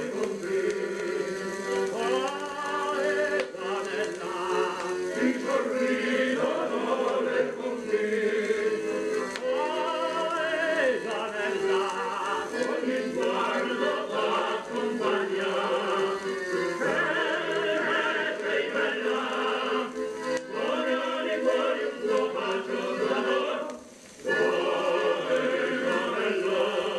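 Recorded Italian popular music playing from a record on a 1961 Garrard Model 88 Mk II turntable, with choir-like voices over the accompaniment. There is a brief break in the music about 24 seconds in.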